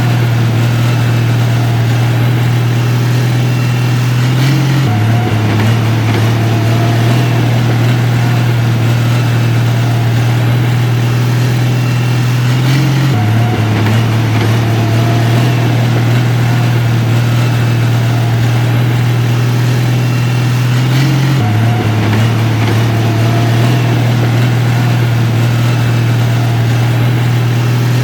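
Heavy diesel engine of construction machinery running steadily, a low hum that shifts slightly in pitch about every eight seconds.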